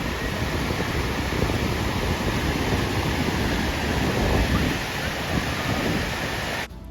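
Ocean surf washing steadily under gusting wind buffeting the microphone. It cuts off sharply near the end.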